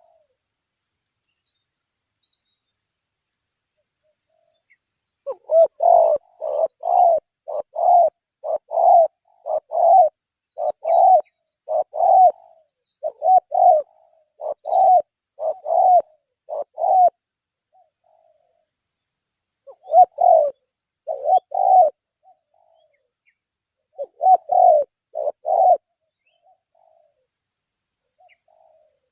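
Spotted dove (tekukur) cooing: a long run of low, evenly spaced coo notes, roughly two a second, starting about five seconds in, then two shorter phrases of three or four coos later on.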